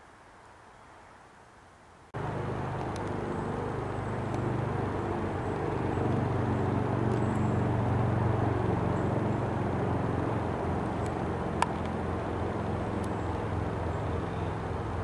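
A steady engine-like hum that starts suddenly about two seconds in, swells toward the middle and eases slightly, with a single sharp click near the end.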